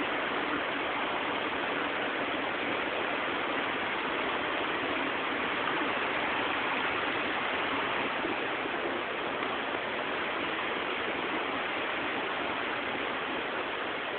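Shallow, fast-flowing river rushing over stones: a steady, even rush of water.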